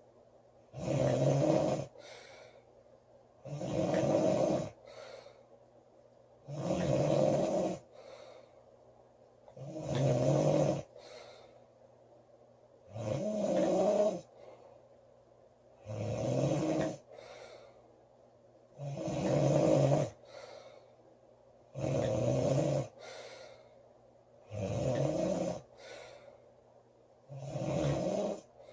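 A woman snoring loudly in a steady rhythm, one snore about every three seconds, each followed by a shorter, fainter breath sound.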